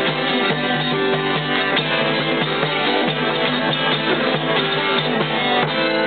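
Acoustic guitar strummed in a steady rhythm, with a hand drum played along.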